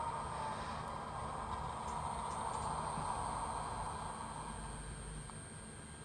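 EMD 567 diesel prime-mover sound from an ESU HO sound decoder, played through a small Bluetooth speaker inside a model boxcar. It is a steady, rough diesel running sound that grows quieter in the last couple of seconds.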